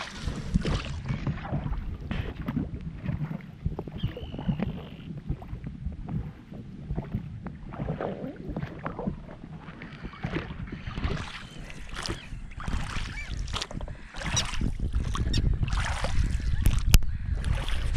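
Oars of an inflatable rowing boat dipping and splashing in calm water, stroke after stroke at an irregular pace, over a low rumble that grows louder near the end.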